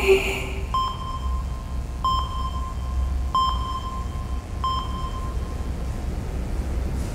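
A held sung note fades out at the start. Then four soft, bell-like pings on the same note sound about 1.3 seconds apart, each ringing out briefly, over a low steady rumble: a quiet instrumental passage in a slow ballad.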